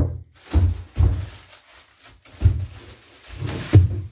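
Black plastic wrapping rustling and a wrapped object bumping inside a wooden crate as it is handled, in a handful of short bursts with dull thumps.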